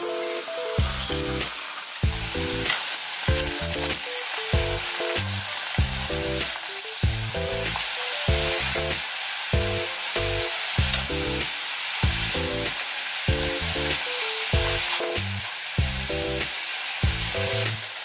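Potato-starch-coated chicken breast balls deep-frying in hot oil, sizzling steadily while wooden chopsticks turn them. Background music with a bouncy, plucked low beat plays underneath.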